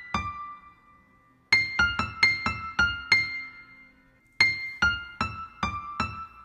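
Background music: a melody of single struck notes that ring and fade, played in short phrases with two brief pauses, one about half a second in and another near the middle.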